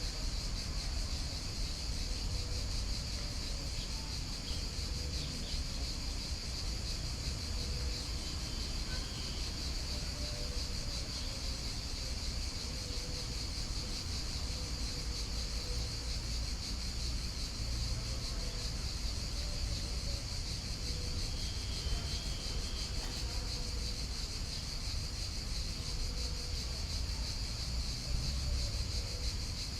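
Steady, unbroken high chirring of an insect chorus, with a low rumble underneath.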